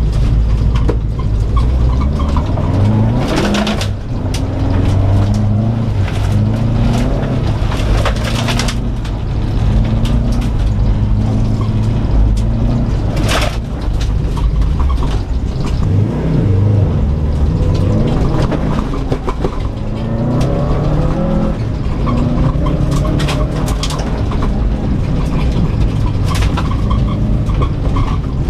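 A 2004 Subaru Impreza WRX STI's turbocharged flat-four engine, heard from inside the cabin at rallycross pace. It revs up and drops back again and again through the gears and corners over a heavy low rumble of road and tyre noise. Several brief sharp noise bursts are heard about 3, 8, 13 and 23 seconds in.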